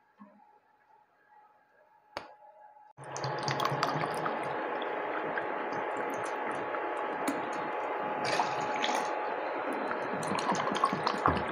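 Sugar water in an aluminium kadai heating on a stove burner, for sugar syrup. After a single click, a steady hissing rush with scattered ticks and crackles starts suddenly about three seconds in.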